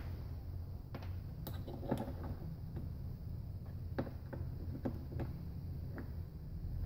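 Small steel transmission valves and springs clicking and tapping against a metal workbench and into an aluminium Hydra-Matic inner valve body as they are picked up and fitted, a few separate ticks a second, over a steady low hum.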